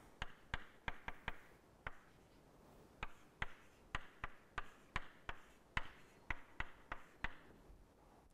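Chalk tapping and clicking against a blackboard while symbols are written: a string of sharp, irregular taps, a few per second, with a short pause about two seconds in.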